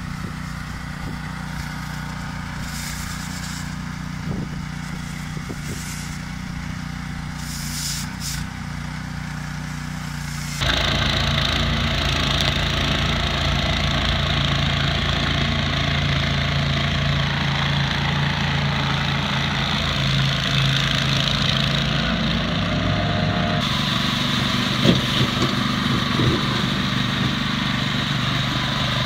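Champion G160HK single-cylinder four-stroke engine (163 cc) on a walk-behind power sweeper, running steadily. About ten seconds in, the sound abruptly gets louder and a strong hiss joins the engine hum.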